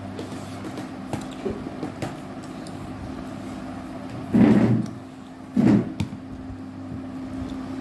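Small clicks and smacks of people eating with their hands over a steady low hum, with two louder, short bursts of noise about four and a half and five and a half seconds in.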